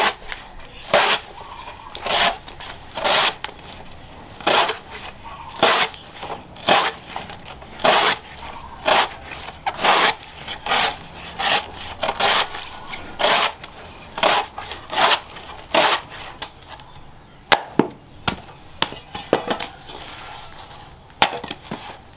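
A hand-forged steel cleaver slicing thin rounds off a banana stem against a wooden block, one short cut about every second. After about 16 seconds the cutting stops and a few sharp knocks follow.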